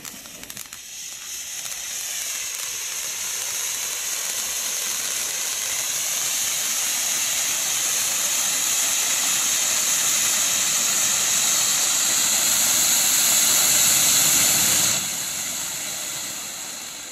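Phoenix Fireworks Lucky Blossom ground fountain firing: a steady, loud hiss of spraying sparks that grows gradually louder, then drops off sharply near the end and tapers away as the fountain burns out.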